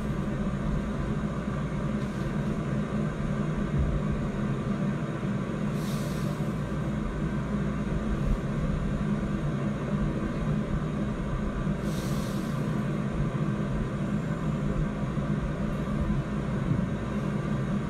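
An engine or motor running steadily, a low drone with a constant hum, and a faint hiss that swells and fades about every six seconds.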